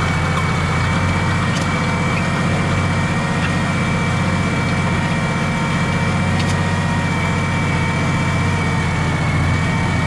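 Tractor engine running steadily under load while pulling a reversible plough through the soil, with a thin steady high whine over it.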